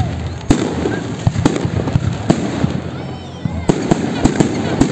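Fireworks going off, with about eight sharp bangs at irregular intervals from aerial shells and firecrackers bursting.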